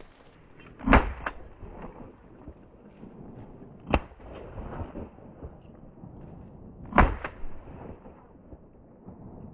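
Three shotgun shots about three seconds apart, the first and last the loudest.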